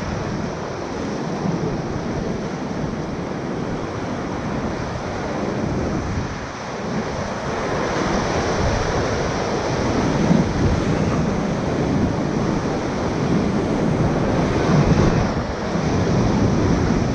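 Whitewater rapids rushing and splashing around a raft, louder about halfway through.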